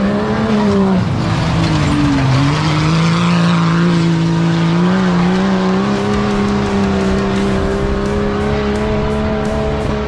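Off-road competition vehicle's engine running hard, its pitch dropping about a second in, then climbing back and holding steady.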